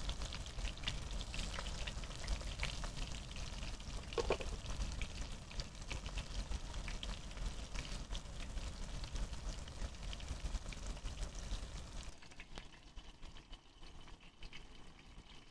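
Breaded monkeyface prickleback pieces frying in hot oil in a pan: a steady sizzle with dense small crackles over a low rumble. It drops away to a quieter hiss about twelve seconds in.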